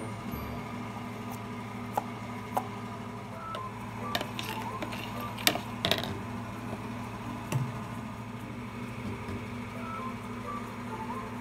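A steady low hum runs throughout, with faint tones above it. A few sharp clicks and light knocks sound over it, most of them bunched a few seconds in and around the middle.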